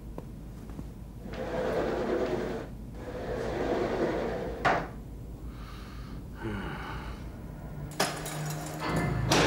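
A door being opened and shut, with a sharp latch click about halfway through, then a couple of sharp knocks near the end.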